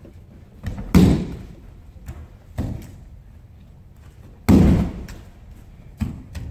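Aikido partner's body hitting the tatami mats in breakfalls as he is thrown: two loud thuds, about a second in and about four and a half seconds in, with two lighter thumps between and after, each trailing off in the hall's echo.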